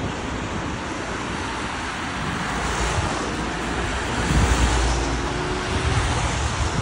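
Road traffic with a vehicle passing close by, its tyre and engine noise swelling to a peak about four to five seconds in, over wind buffeting the microphone.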